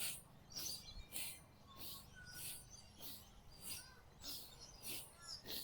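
Faint birdsong: short high chirps repeating about twice a second, with a few brief whistled notes from other birds.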